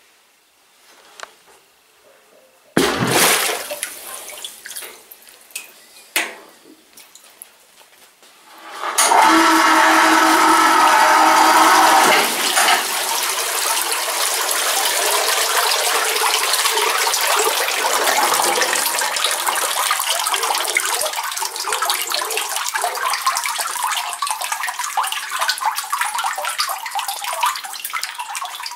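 Cleaning liquid splashing in a parts-washing tank, then from about nine seconds in a loud, steady rush of liquid pouring off a cylinder head and back into the tank as it is lifted out.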